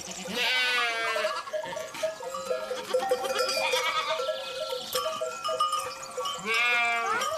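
Goats bleating: two long, quavering bleats, one just after the start and one near the end, with background music between them.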